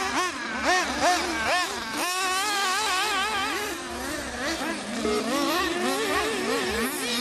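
Several 1/8-scale nitro buggies' .21 two-stroke glow engines running together, their pitch rising and falling quickly and overlapping as the buggies throttle on and off around the track.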